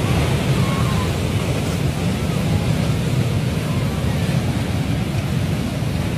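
Landslide in progress: rock and debris rushing down the slope in a steady, deep roar with a rushing hiss over it.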